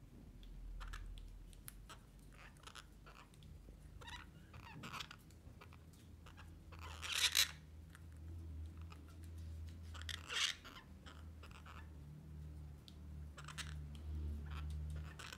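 Orange-fronted parakeets making scattered small clicks and crunching sounds at their food and on the wire cage top, with two louder harsh bursts about seven and ten seconds in, over a steady low hum.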